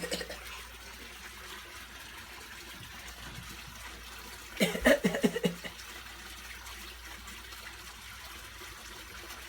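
Fake coughing: a quick run of forced, voiced coughs about halfway through, over a steady background hiss. The end of an earlier cough trails off at the very start.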